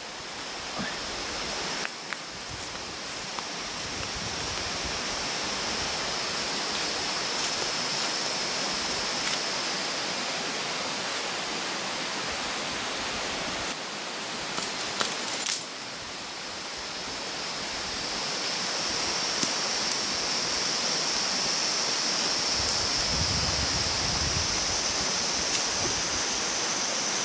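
Rushing water of a rocky forest river, a steady hiss of noise, with a steady high-pitched whine above it. A few sharp knocks come about halfway through.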